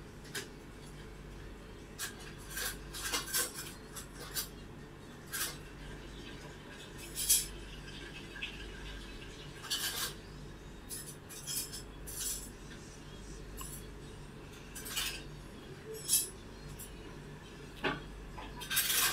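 Scattered light clinks and clicks of small hard objects, a dozen or so at irregular intervals, over a faint steady low hum.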